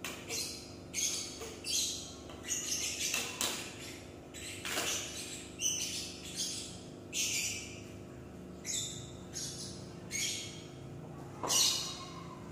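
Birds chirping in short, repeated high-pitched calls, roughly one a second, over a steady low hum.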